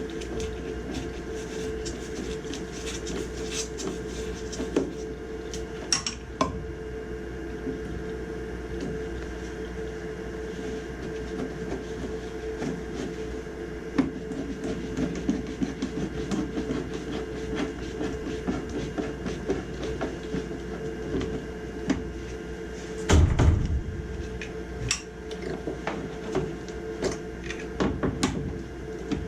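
A steady machine hum under scattered clicks and clanks of metal parts and tools being handled, with a heavier knock about 23 seconds in.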